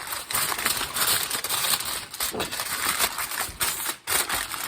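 Aluminum foil crinkling and crackling as it is pressed down over a baking pan to cover it.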